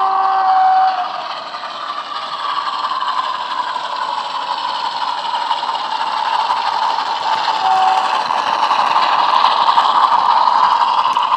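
Bachmann OO-gauge Class 47 model's DCC sound decoder playing a Class 47 diesel engine sound through its upgraded bass-enhanced speaker as the locomotive runs past with its wagons, growing louder as it draws closest near the end.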